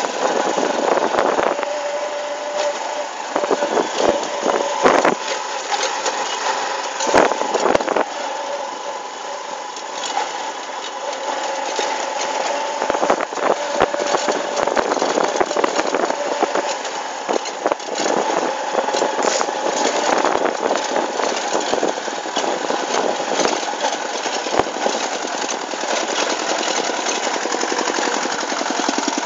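Motorcycle engine running steadily while the bike is ridden, a continuous drone with a steady whine in it. Several sharp knocks and rattles break in during the first eight seconds.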